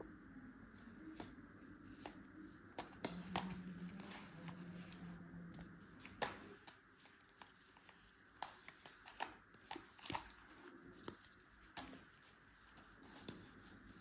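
Faint scattered clicks and rustles of hands handling a pack of Cadbury Gems.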